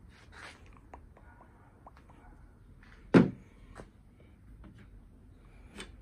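Handling sounds around a car's exterior door handle: a few light clicks and taps, with one sharp knock about three seconds in.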